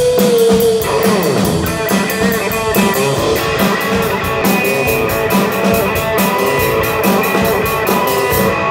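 Live rock music from an electric guitar and a drum kit. A held note slides down in pitch about a second in, then the guitar plays over a steady drum beat with cymbal hits.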